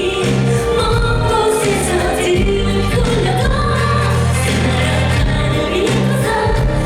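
Live pop song: a female lead vocal sung over a full band, with a steady bass line underneath.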